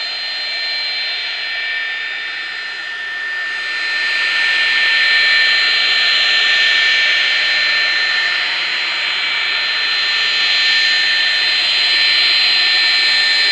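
GE J79 turbojet engine running just after a relight, heard from about 50 yards: a steady high whine over a broad rush, which grows louder about four seconds in and then holds.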